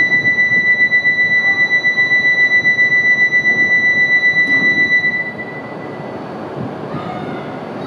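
Electronic door-closing warning buzzer: a high steady tone pulsing about seven times a second, sounding for about five seconds and then stopping, as the doors of an E5-series Shinkansen close. Under it the low steady hum of the train standing at the platform.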